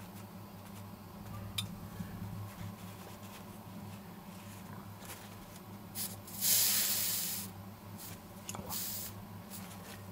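Hot travel iron pressed onto a wet paper towel, steam hissing for about a second some six seconds in, with a shorter hiss near the end. This is steam heat being used to swell the foam core and lift a dent out of a composite tail surface. A steady low hum runs underneath.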